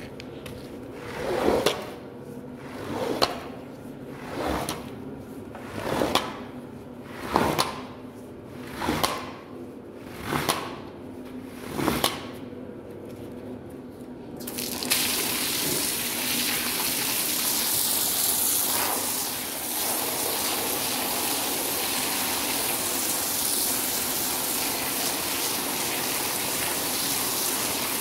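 A long-handled scrub brush swishes across a foam-covered pile rug in slow, even strokes, about one every second and a half. About halfway through, a steady hiss of water spraying onto the rug takes over, rinsing the foam off.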